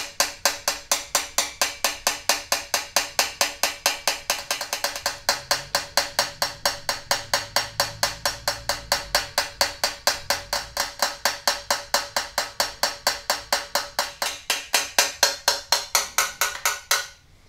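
Small repair hammer tapping a Besson trumpet's brass bell in a fast, even run of about five taps a second, the bell ringing faintly under the blows. The taps are flattening high spots and a crown in the bell left by earlier botched dent work.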